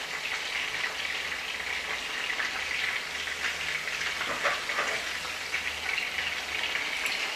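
Chicken wings sizzling in hot oil in a frying pan: a steady hiss with fine crackling pops.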